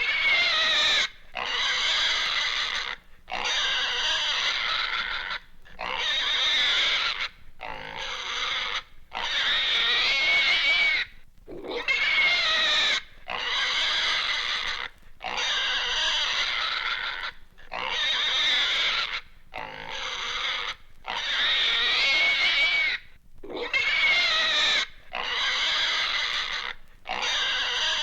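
Pig squealing in fear: a run of about fourteen shrill squeals, each lasting a second or two, with short breaks between them, starting suddenly after a silent gap. The recording is from a 1960s sound-effects record.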